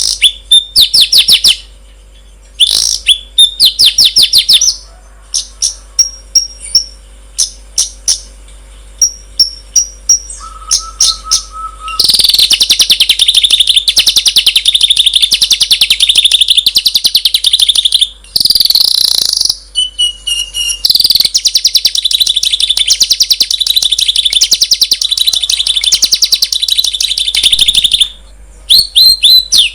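Songbird song: bursts of rapid, high chirping trills with a short steady whistle about ten seconds in, then a long unbroken fast trill that runs on with only a brief break, stopping shortly before the end.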